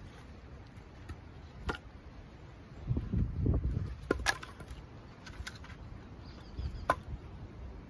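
Split firewood pieces knocking and clunking against each other as they are set onto a woodpile, a handful of sharp wooden knocks spread out. A low rumble about three seconds in is the loudest part.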